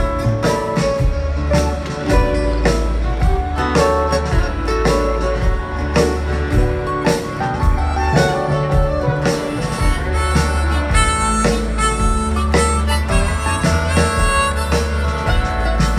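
Live folk-rock band playing an instrumental passage, a harmonica carrying the melody over acoustic guitar, upright bass and drums.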